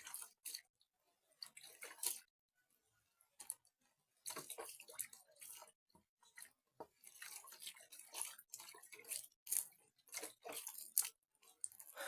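Hands splashing, rubbing and scooping water in a basin, washing off mud; scattered at first, then busier from about four seconds in.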